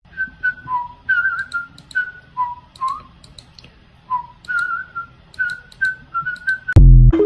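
Someone whistling a quick tune of short notes that hop between two or three pitches, with sharp little clicks among them. Near the end a loud, deep thump cuts in.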